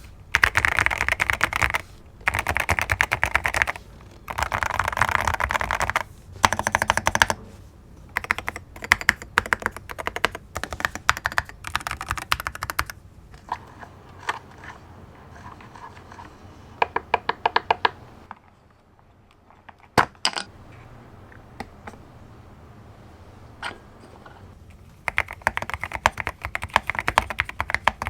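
Keystrokes on an Akko MU02 wooden-case mechanical keyboard. It starts with fast runs of continuous typing, then slower separate keystrokes, a short lull with a few single key presses, and fast typing again near the end.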